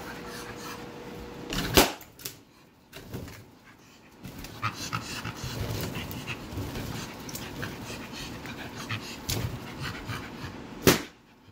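A dog panting as it mouths and bites at latex balloons, with two loud, sharp balloon pops, one about two seconds in and one near the end.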